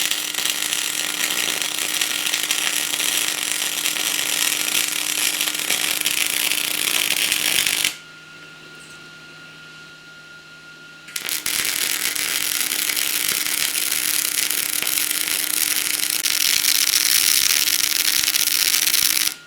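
Angle grinder working steel in two long runs, a steady motor tone under loud grinding noise. It stops for about three seconds in between.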